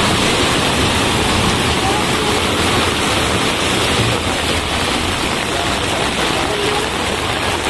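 Floodwater rushing and splashing as a car ploughs fast through a flooded street, its wake then surging against the kerb and shop steps: a loud, steady wash of water.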